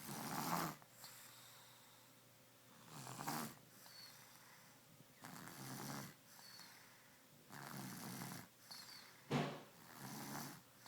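Someone snoring in their sleep: about five noisy snoring breaths, one every two to three seconds, with a short, sharper and louder one about nine seconds in.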